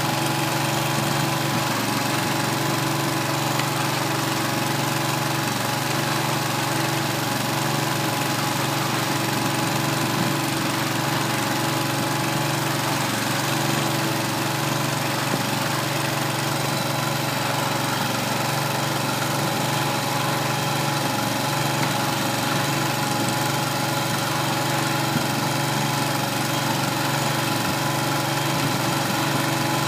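Kohler 25 hp gasoline engine running at a steady speed, driving a small 25-cubic-foot feed mixer that is turning over a load of hay.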